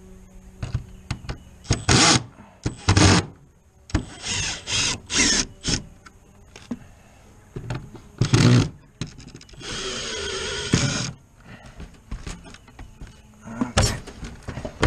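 Cordless drill-driver run in a series of short bursts, with one longer run of about a second past the middle. It is backing out the screws that hold a wire cage trap to a wooden board.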